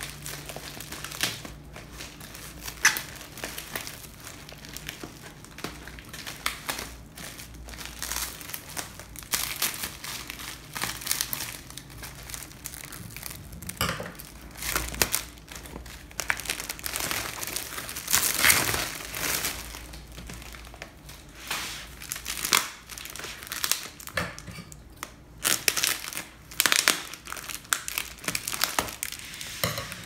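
Black plastic parcel wrapping crinkling and rustling as it is pulled and torn open by hand, in irregular crackles throughout.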